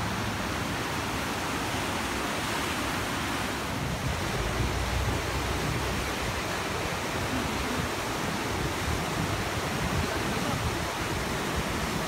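Whitewater river rapids rushing in a steady, unbroken wash of water noise, with a brief low swell about four seconds in.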